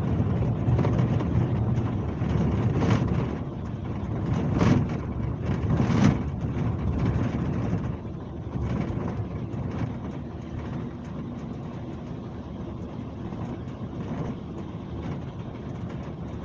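Scania K370C coach's diesel engine running as the bus travels. It is louder through the first half, with three short jolts, then drops to a quieter, steadier run about halfway through.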